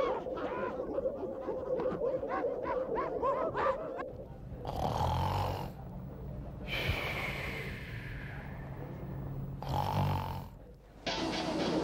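A man snoring: three long snores about two and a half seconds apart over a low steady hum. Before them, a quick run of short rising-and-falling vocal sounds.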